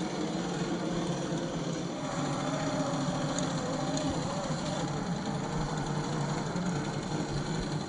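Motor and gear drivetrain of an SCX10 III RC crawler running, a steady whine whose pitch wavers up and down with the throttle.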